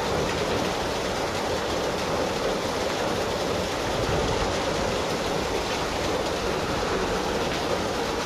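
Steady rushing noise of floodwater running through a swollen drainage ditch, mixed with falling rain.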